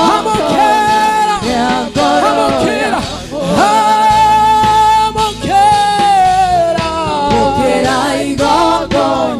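Gospel worship singing: a lead voice holding long, wavering notes over other voices and music.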